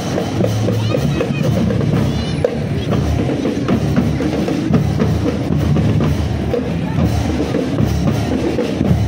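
School marching drum band playing: bass drums and snare drums beating a continuous rhythm.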